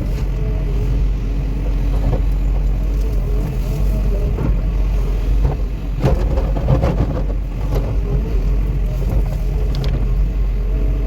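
Caterpillar 316E excavator's diesel engine running steadily, with a cluster of knocks about six to seven seconds in.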